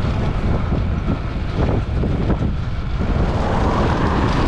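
Wind rumbling over a handlebar-mounted action camera's microphone on a moving road bike, with road noise from the tyres. About three seconds in, a steadier, higher hiss comes in.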